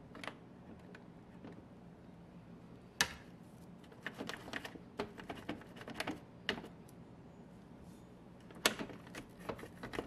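Irregular sharp plastic clicks and taps on a Bosch dishwasher's push-button control panel as a toothpick and then a toothbrush work food buildup out of the gaps around the sticking buttons. One loud click comes about three seconds in, then quick clusters of clicks, the way keyboard typing sounds.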